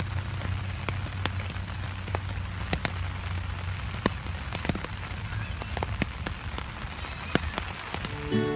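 Steady rain falling, with scattered individual drops ticking sharply close by, over a low steady hum.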